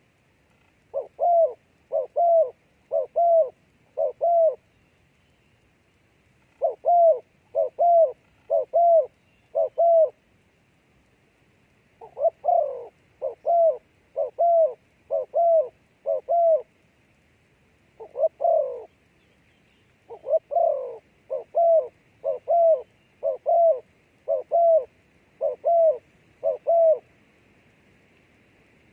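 A dove cooing in repeated series of short, arched, low coos, roughly one a second, four to eight notes per series with short pauses between.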